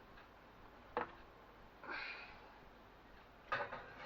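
Kitchen handling sounds: a sharp knock about a second in, a short scrape, then a couple of clunks near the end, as the baking dish is put under the grill.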